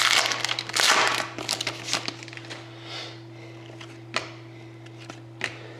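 A sports-card pack wrapper being torn open and crinkled, busiest in the first two seconds, then a couple of light clicks as the cards are handled.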